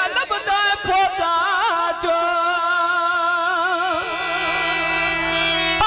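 A man's voice, amplified through a microphone, holds one long sung note with a wavering vibrato in the style of Punjabi goon mahiye folk singing. The wavering settles into a steadier tone near the end.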